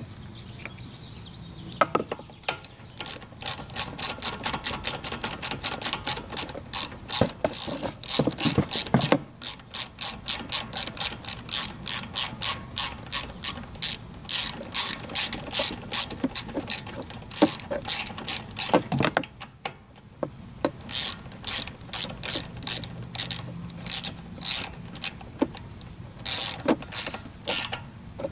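Ratchet wrench clicking in long quick runs, about four clicks a second, as bolts are turned at the mower engine's starter, with brief pauses and a few knocks of the wrench against metal.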